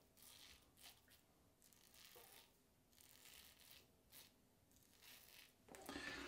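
King C. Gillette double-edge safety razor with a Feather blade scraping through lathered stubble along the jaw: about six short, faint strokes.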